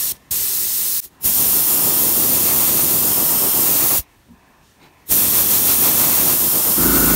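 Airbrush spraying paint: a loud, even hiss that stops briefly twice in the first second, runs for about three seconds, pauses for about a second, then resumes.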